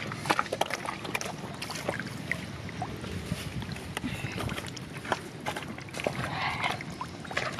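Fish wriggling and flapping in a shallow muddy puddle: irregular small splashes and wet slaps of water, over a steady low rumble.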